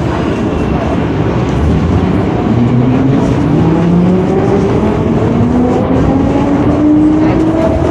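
R62A subway car under way: a steady rumble of wheels on rail, with a traction-motor whine that starts about two and a half seconds in and rises slowly in pitch as the train picks up speed.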